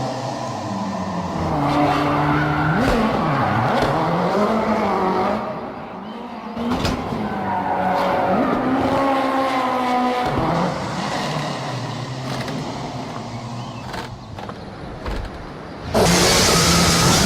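Ken Block's Ford Fiesta rally car engine revving hard, its pitch rising and falling repeatedly with throttle and gear changes. About a second before the end, a loud rushing noise suddenly joins it.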